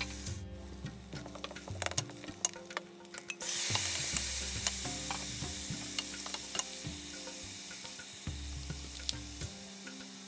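Stir-frying in a hot pan: the spatula clicks and scrapes against the pan, and about a third of the way in food hits the hot oil with a sudden loud sizzle that slowly dies down.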